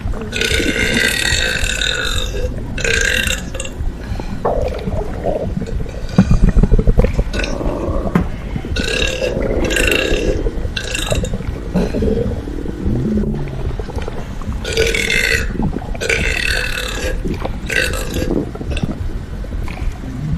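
A person burping, with one long, loud burp about six seconds in, among several short high-pitched sounds.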